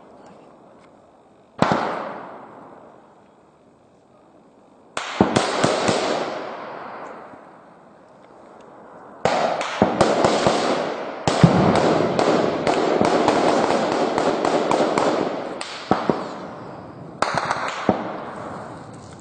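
Gunfire in a firefight. A single shot comes about two seconds in and another a few seconds later, each with a long echoing tail. From about halfway, sustained automatic fire runs for several seconds in dense rapid volleys, followed by a few separate shots near the end.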